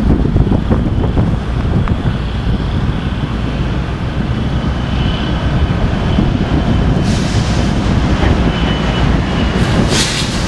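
A consist of several CSX diesel locomotives passing, with a steady heavy rumble of engines and wheels on the rails and a faint high whine above it. Two short bursts of hiss come about seven and ten seconds in, as the first intermodal cars begin to follow.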